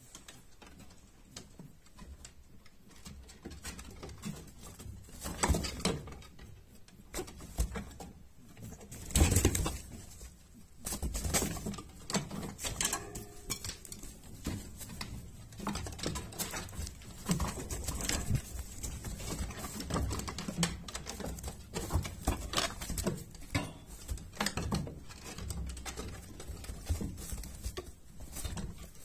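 Irregular rustles, scrapes and knocks from Belgian Giant White rabbits moving about on straw in a wooden hutch. Fur brushes right against the microphone.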